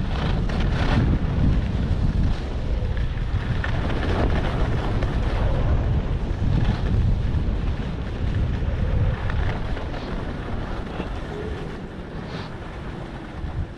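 Wind rushing over the microphone of a skier's camera during a downhill run, a loud low rumble with the scrape of skis on snow showing through. It eases off near the end as the run slows.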